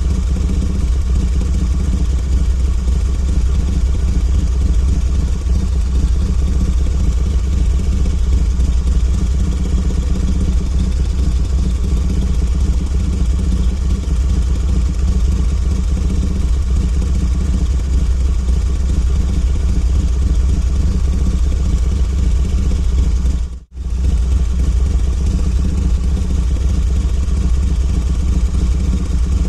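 Harley-Davidson V-twin motorcycle engine idling steadily. It cuts out for a split second about three-quarters of the way through, then carries on unchanged.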